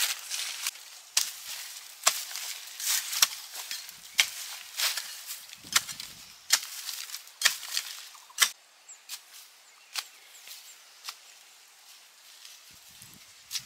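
A hand tool chopping: a run of sharp, irregular strikes, about one or two a second, growing fainter and sparser in the second half.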